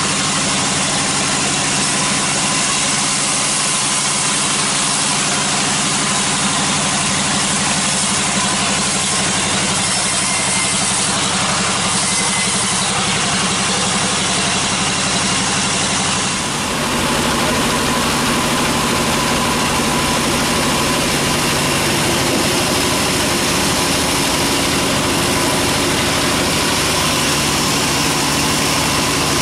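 Sawmill band saw running steadily as teak logs are sawn into slabs, a loud constant machine hum. The sound changes abruptly a little past halfway.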